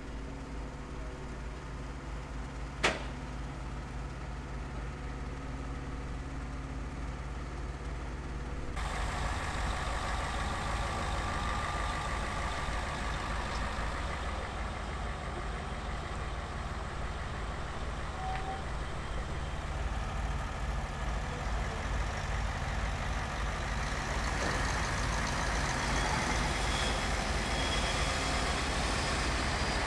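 Diesel engines of a heavy-haulage truck and multi-axle modular trailer running at low speed, a steady low rumble. A single sharp click comes about three seconds in, and about nine seconds in the sound turns louder and fuller.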